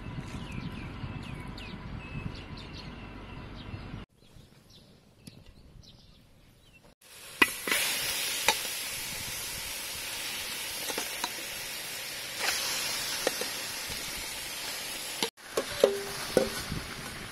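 Hands mixing wet, marinated chicken pieces. After a short lull, a steady hiss with several sharp knocks and scrapes of a metal spatula against a steel wok as the chicken is moved into it.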